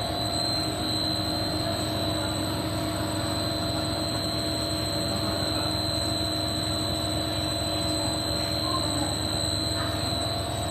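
Plastic square-mesh net extrusion line running: a steady machine noise with a few constant whining tones, unchanging throughout.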